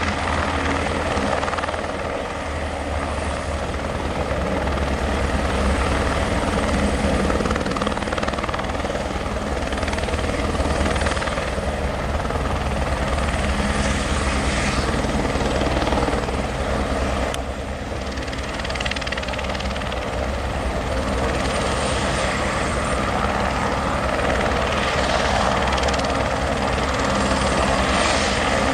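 Airbus AS350 B3 single-turbine helicopter hovering low and settling onto its skids, then running steadily on the ground with the main rotor still turning and the turbine whining.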